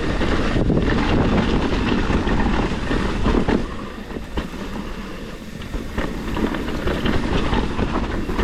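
Mountain bike rolling over a rough dirt trail, its tyres, chain and frame rattling and clicking over the bumps, with wind buffeting the microphone; the wind rumble drops away about four seconds in.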